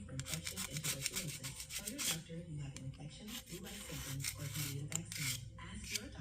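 Quick repeated hand-scrubbing strokes on a metal surface, cleaning leftover gasket material off a dozer clutch housing's mating face.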